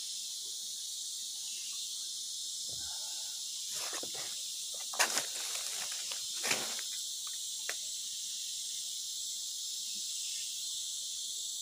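Steady high-pitched chorus of tropical forest insects, crickets and the like, with a few brief rustles and knocks about halfway through.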